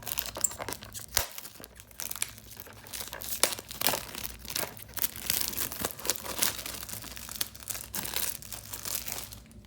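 Plastic shrink-wrap being torn open and peeled off a VHS tape case, crinkling and crackling in quick irregular bursts.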